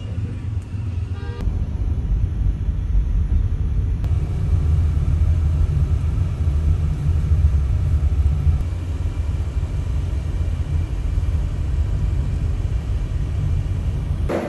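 Steady low rumble of a car driving through rain-flooded streets, heard from inside the cabin.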